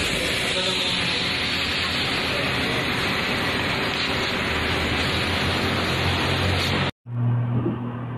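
Steady loud hiss of rushing compressed air. It cuts off suddenly about seven seconds in, and a low steady hum follows.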